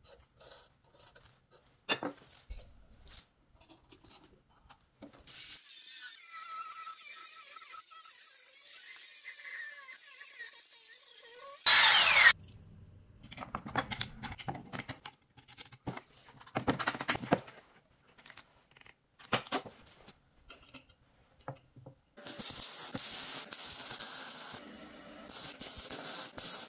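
A run of workshop sounds: light clicks and taps of small parts being handled, then a power tool running steadily for about six seconds, ending in one brief loud burst. Scattered metal knocks and scrapes follow, then the steady hiss of TIG welding over the last few seconds.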